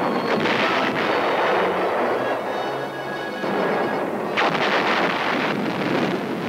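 Field artillery firing: a towed gun's reports with a rolling, echoing noise between them, and a sharp report about four and a half seconds in.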